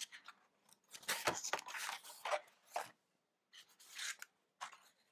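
Sheets of painted paper being handled and moved, rustling and crinkling in short bursts, with a longer run of rustles about a second in.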